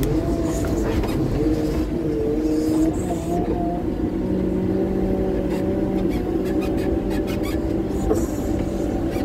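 Caterpillar wheel loader's diesel engine running, heard from inside the cab. Its note wavers up and down for the first few seconds, then holds steadier.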